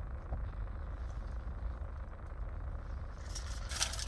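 Steady low rumble inside a car's cabin, with a brief clatter of rattling and rustling about three seconds in.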